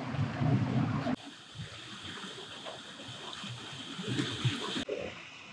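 Wind buffeting the microphone over sea water for about the first second, then it cuts suddenly to quieter lapping and trickling water with a steady high hiss behind it.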